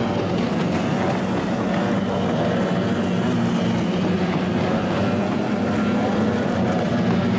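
Kyotei racing hydroplanes' two-stroke outboard motors running, a steady engine drone.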